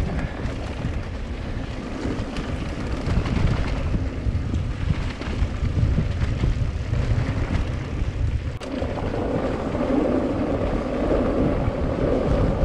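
Wind buffeting the microphone over a steady low rumble while riding a mountain bike. About two-thirds of the way through the sound changes abruptly, the deep rumble dropping away.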